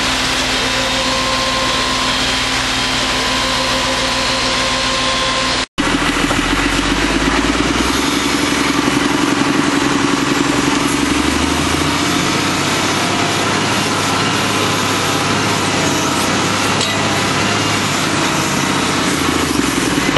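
Terra Select T5 drum screening machine running steadily with a constant engine and machinery drone. About six seconds in the sound cuts briefly and resumes as a deeper, fuller running drone of the machinery working soil.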